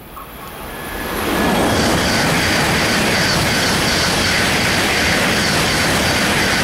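Shinkansen bullet train passing at speed close by. The rushing noise of wheels and air swells over the first second and a half, then holds loud and steady.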